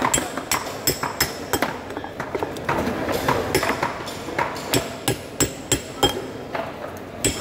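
Knife chopping through a rohu fish head onto a wooden chopping block: a run of sharp knocks, about three a second, some with a light metallic ring from the blade.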